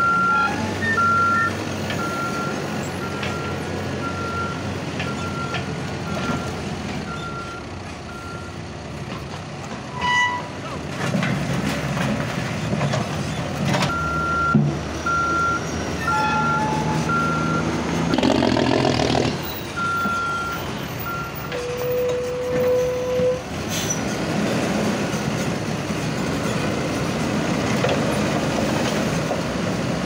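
Cat 416F backhoe loader's diesel engine running while its backup alarm beeps in even pulses, stopping and starting again twice as the machine shifts between reverse and forward. A louder burst of engine and working noise comes a little past halfway.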